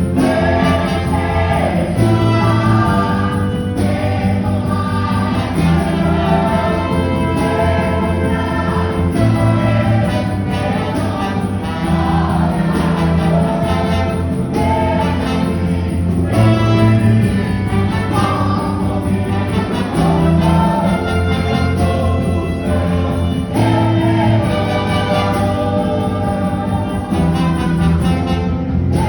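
Gospel music: a choir singing over instrumental accompaniment with sustained bass notes.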